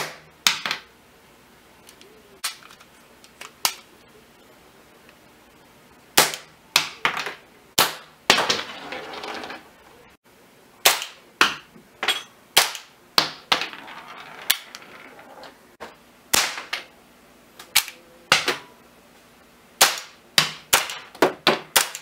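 Cap-firing model pistols, a Hi-Power model gun first, shooting caps: a string of sharp cracks at irregular spacing, about twenty in all, with a quick run of five or six near the end.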